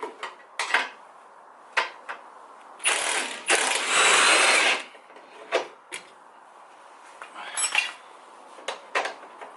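Cordless power tool running in two short bursts about three to five seconds in, most likely driving out the radiator support's 19 mm bolts, with scattered metal clinks and knocks of tools and parts around it.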